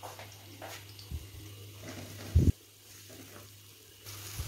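Chopped onions sizzling faintly in hot ghee in a non-stick wok, stirred with a spatula near the end. Two low thumps come through, a small one about a second in and a louder one about two and a half seconds in.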